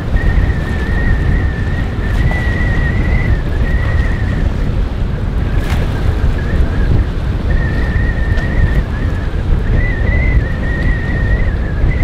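Strong wind buffeting the microphone: a loud, unsteady low rumble, with a thin high whine wavering over it that fades out around the middle and comes back.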